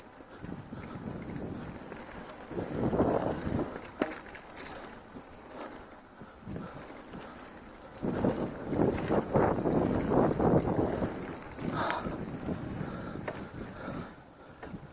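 Mountain bike riding over dirt singletrack: steady tyre and trail noise with the bike rattling, swelling into louder rough rumbling twice, about three seconds in and again from about eight to eleven seconds, with a few sharp knocks.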